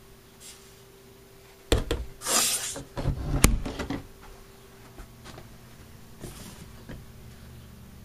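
A wooden interior door of an RV being handled: two clicks just under two seconds in, a swishing rub, then knocks and a sharp latch click at about three and a half seconds. A few faint knocks follow.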